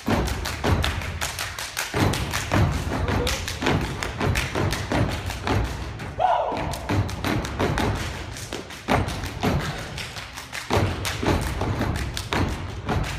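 Fraternity step team stepping in tight unison: fast, rhythmic stomps on the stage floor with hand claps, a dense run of sharp beats.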